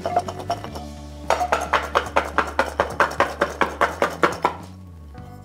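Garlic cloves rattling hard inside a closed glass jar as it is shaken, a fast run of clinks about five a second that knock the papery skins off the cloves; the shaking stops about four and a half seconds in. Soft background music underneath.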